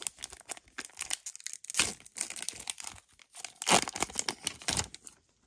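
A Pokémon card booster pack's foil wrapper being torn open and crinkled by hand: a run of crackling rips, the loudest about two seconds in and again near the end, then it stops.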